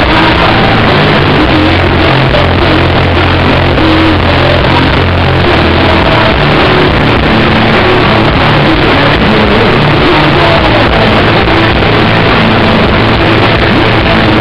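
Live rock band playing loud, with distorted electric guitars, bass and drums, and sustained low riff notes. The live recording is saturated and muffled.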